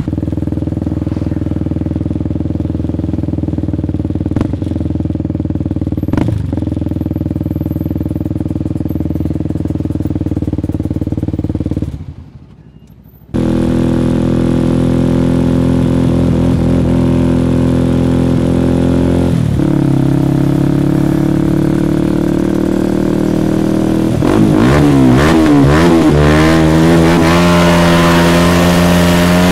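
Motorcycle engine running steadily, with a brief break about 12 seconds in. From about four-fifths of the way through it gets louder and revs up and down repeatedly as the bike accelerates.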